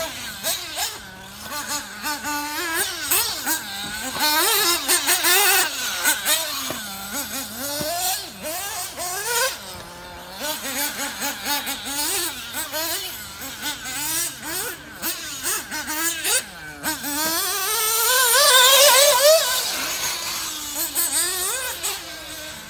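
Small two-stroke nitro engine of a Kyosho MP9 TKI3 1/8-scale RC buggy revving up and down as it laps the track, the pitch climbing and dropping with each throttle burst. The loudest moment is a long rising rev near the end.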